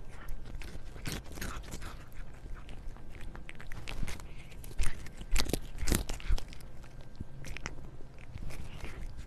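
A cat biting and chewing a treat held by hand, close-miked, with irregular crunches that are loudest about halfway through.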